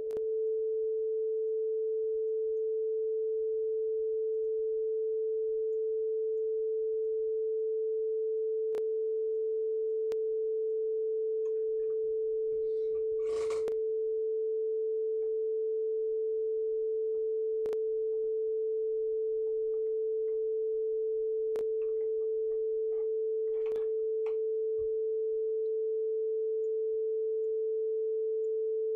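Arturia ARP 2600 synthesizer emulation sounding a single steady pure tone, held at one pitch without change. A few faint clicks and a brief rustle about halfway through sit over it.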